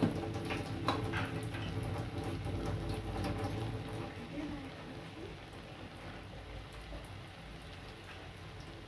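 Soya chunks and cabbage softly sizzling in a frying pan, with a few sharp clinks of a utensil against the pan in the first second; the sizzle fades after a few seconds.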